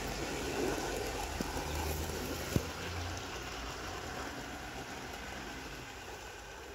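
O gauge model Class 20 diesel locomotive and oil tank wagons running along the garden railway track: a steady rumble of motor and wheels on rail that slowly fades as the train moves away, with one sharp click about two and a half seconds in.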